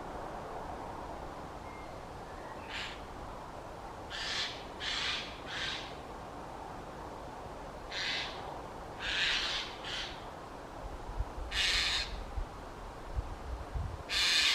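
A bird giving short, harsh, rasping calls, about nine of them spaced irregularly, each under half a second. Low rumbling comes in over the last few seconds.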